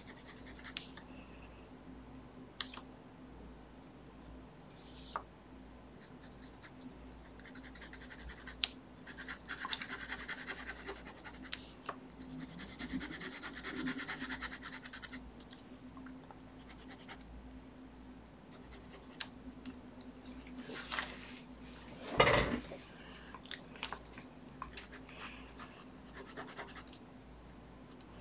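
Black felt-tip ink pen scratching across a paper sketch cover in short strokes, with light ticks of the pen tip and one louder bump or rub of the hand on the paper about two-thirds of the way through. A faint steady hum underneath.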